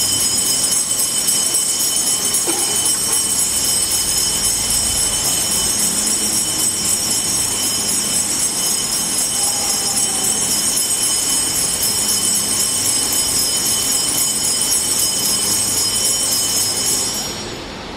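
Handheld altar bells (sanctus bells) rung continuously as a dense, high jingle, marking the blessing with the monstrance at Benediction. The ringing stops suddenly shortly before the end.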